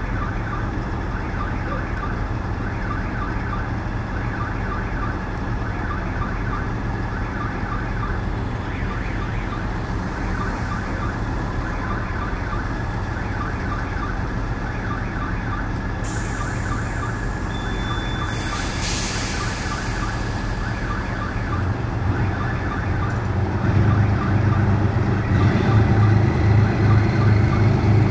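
DR1A diesel multiple unit idling with a steady low hum while a level-crossing warning bell rings in rapid repeated strokes. About two-thirds of the way in there is a burst of air hiss. Near the end the diesel engine gets louder with a pulsing throb as the train moves off.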